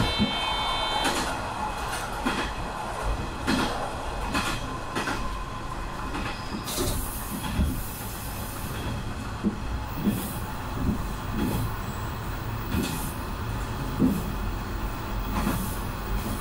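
Diesel railcar running along single track, a steady rumble of the wheels with regular knocks over the rail joints, heard from inside the cab end. A hiss comes in about seven seconds in as the train rounds a curve, and a brief high beep sounds right at the start.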